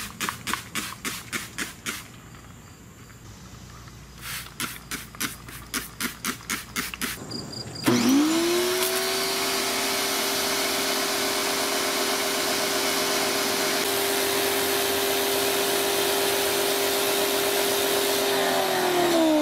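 A trigger spray bottle squirted rapidly, about four squirts a second, in two runs. About 8 s in, a pressure washer starts up and runs with a steady hiss of spray and a steady whine from its motor and pump, which falls in pitch as it shuts off at the very end.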